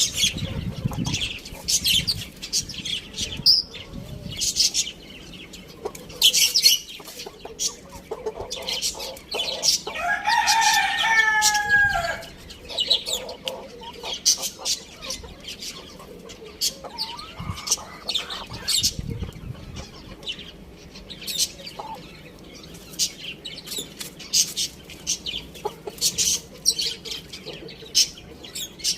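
Chickens clucking, with a rooster crowing once about ten seconds in, a call of about two seconds falling in steps. Many short sharp clicks and scratches throughout.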